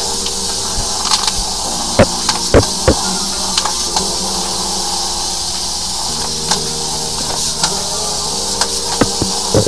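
High-pressure drain jetter running: a steady motor-and-pump hum under a hiss of water spray, with scattered sharp knocks and clicks.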